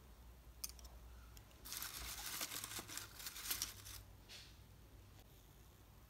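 Shredded kraft-paper box filler crinkling and rustling as a hand pushes into it, for about two seconds from near the two-second mark, with a few light clicks before it.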